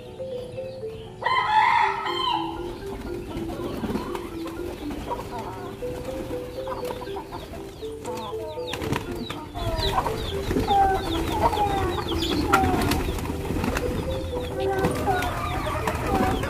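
Chickens and pigeons at scattered rice: one loud drawn-out call about a second in, then from about halfway on many short clucks and calls. A soft background tune runs under it, and a low rumble joins from about halfway.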